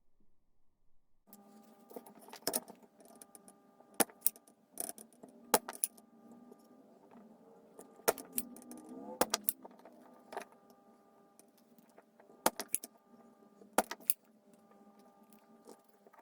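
A series of sharp metallic clicks and clinks, irregularly spaced, over a steady electrical hum that starts about a second in and cuts off abruptly at the end.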